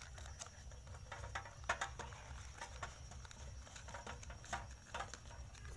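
Faint, irregular clicks and crinkles of a small plastic package being handled and opened by hand.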